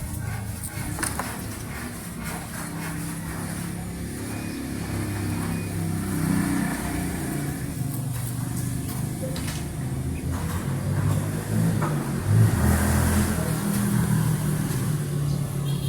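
A motor vehicle's engine running with a continuous low rumble that wavers in pitch, a little louder around the middle.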